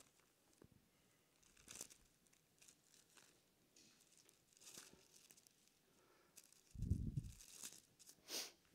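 Faint rustling of thin Bible pages being turned by hand, with a soft low thump near the end.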